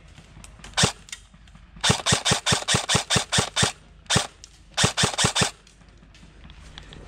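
Airsoft gun firing: a single shot, then a quick string of about nine shots at roughly five a second, another single shot, and a short string of about four, each a sharp crack.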